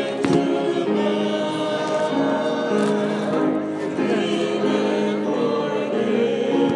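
A choir singing a slow hymn in long held chords that change about once a second. There is a brief click near the start.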